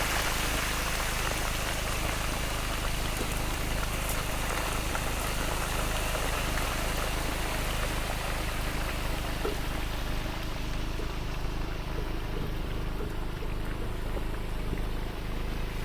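Steady rushing noise with a low, even hum beneath it.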